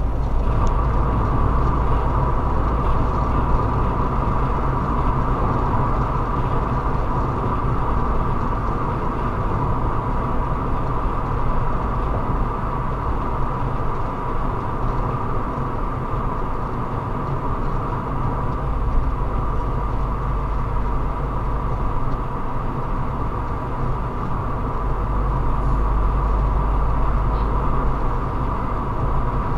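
Road and engine noise of a car driving at city speed, heard from inside the cabin: a steady rumble with a constant hum running through it.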